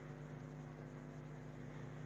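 Faint steady background hum with a low hiss: constant noise from the recording setup, with no distinct event.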